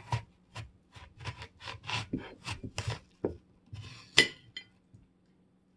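A knife cutting through a large crisp red apple held in the hand: a run of short crunching cuts, about three a second, then a single sharp click with a brief ring a little after four seconds in.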